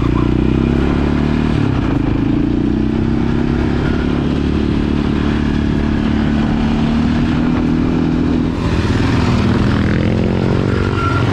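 Sport quad's single-cylinder engine running under way, its pitch rising and falling with the throttle.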